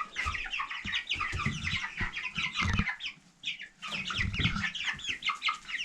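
A flock of four-week-old meat king broiler chicks peeping together in many short, falling chirps, with a brief lull about three seconds in. A few low thuds sound in the middle.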